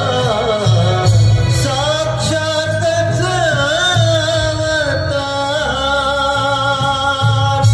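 A song from a Zadipatti folk-theatre play: a singer's voice bending through ornamented melodic phrases over the live accompaniment of organ and drums.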